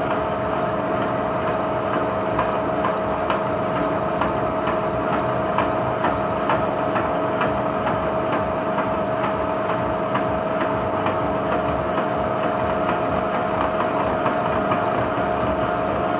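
Milling machine spindle turning at about 120 RPM as its cutter cuts a spline into a motorbike shaft held in a dividing head: a steady whine from the machine with light, irregular ticking from the cut.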